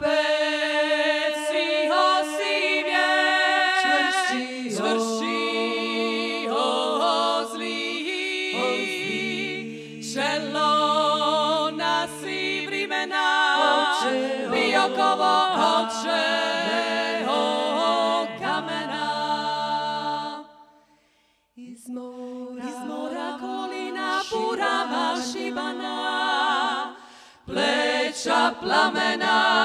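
Women's klapa, a Dalmatian a cappella vocal group, singing in close harmony with several voice parts and held low notes under the melody. The singing breaks off briefly about two-thirds of the way through, then resumes.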